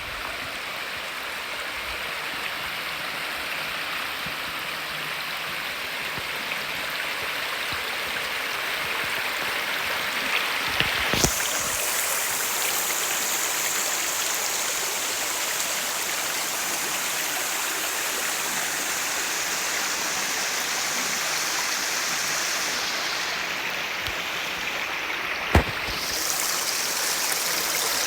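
Clear mountain stream rushing and splashing over rocks, a steady flow. Its sound changes abruptly about a third of the way in and again near the end, each time with a sharp click.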